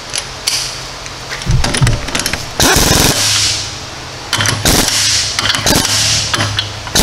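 Air impact wrench run in about four short rattling bursts, tightening the castle nut on a new lower ball joint until its cotter-pin hole lines up; the burst a little under three seconds in is the loudest.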